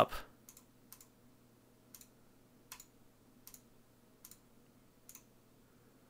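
Computer mouse button clicked seven times, faint single clicks about a second apart or less, each one pressing the A button of an on-screen micro:bit simulator to step the number up.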